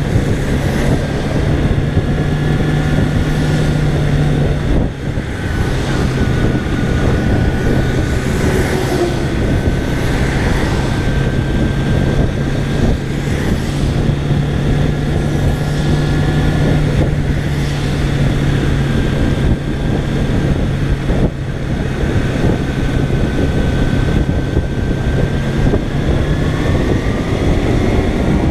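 Kawasaki Ninja 250R's parallel-twin engine cruising at a steady drone, under wind rush and the hiss of tyres on a wet road. Near the end the pitch climbs as the engine revs up.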